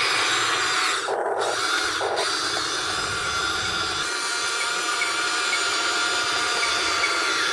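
Huina 1580 RC excavator's small electric motors and gearboxes whining steadily as the machine works its concrete breaker, with two brief changes in tone about one and two seconds in.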